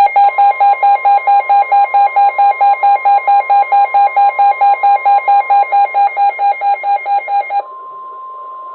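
Weather alert radio sounding its alarm for a flash flood warning: rapid beeping, about five beeps a second, over the steady warning tone of NOAA Weather Radio. The beeping stops near the end, leaving only the steady tone, quieter.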